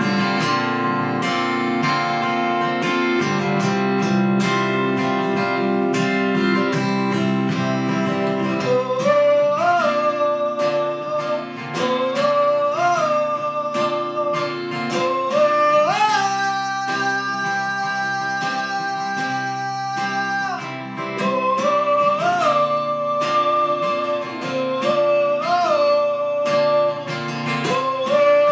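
Acoustic guitar playing a song. From about nine seconds in, a melody line with upward-scooping notes joins it, including one long held note.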